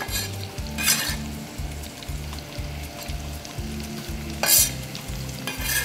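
Sliced onion dropped into hot butter and olive oil in a pot, sizzling in about four sharp bursts as each batch lands, the loudest a little past the middle. A low, evenly repeating beat runs underneath.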